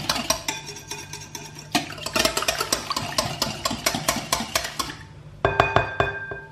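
Wire whisk beating a thin egg-and-milk batter in a glass bowl, a fast rattling of wire against glass that stops about five seconds in. Background music plays throughout.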